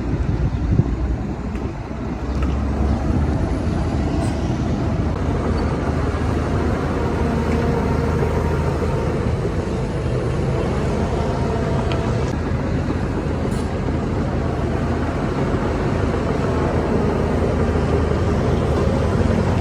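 Heavy diesel earthmoving machinery running steadily under load, with a deep engine rumble. It dips briefly about two seconds in, then holds level.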